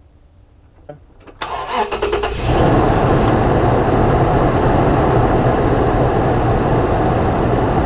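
A Toyota VVT-i V6 cranks on its starter for about a second and catches, then runs steadily. It is being jump-started off a very dead battery with a portable jump pack.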